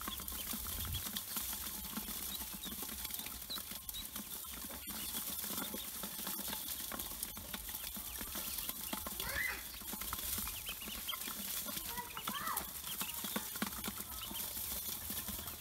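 Pekin ducklings crowded in a metal basin: a dense, steady patter of small taps from their feet and bills on the metal, with a few brief peeps about 9 and 12 seconds in.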